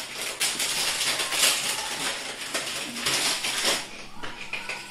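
Plastic biscuit packet crinkling and rustling as it is handled, a dense crackle that dies away about four seconds in.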